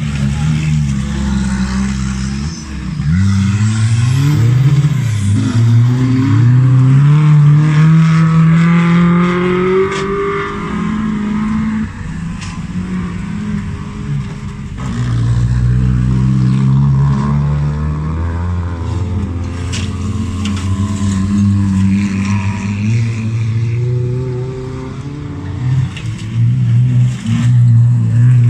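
Autocross race cars on a dirt track, several passing one after another, their engines revving hard with the pitch climbing again and again as they accelerate.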